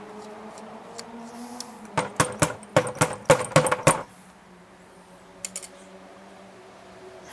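Quick run of about ten sharp metallic clicks and taps, then two more a second later: a flat-tip screwdriver working at a stuck brass main jet in a small-engine carburetor.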